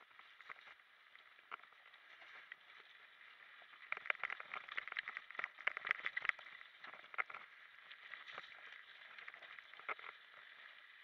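Mountain bike clattering over a rough dirt and gravel trail: tyres crunching and the bike's parts knocking and rattling over bumps, with a dense run of knocks about four to six seconds in.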